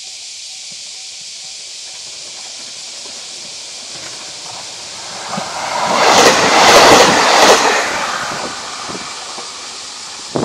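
JR Shikoku 2700 series diesel limited-express train passing close by. It builds up, peaks with a few wheel knocks over rail joints, then fades as it moves away.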